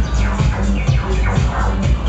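Loud electronic music played live through a club's sound system: a heavy, dense bass under a run of quick downward-sweeping sounds.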